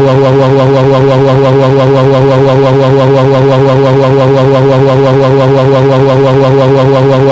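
A loud, continuous electronic buzzing sound effect: one held low pitch with a fast warble in its upper tones, the 'beeping noise' of a cartoon bomb.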